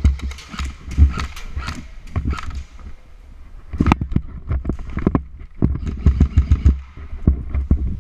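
Rapid irregular knocks, clicks and heavy thumps close to a helmet-mounted camera, in clusters about a second long: movement and gear handling during close-quarters airsoft play.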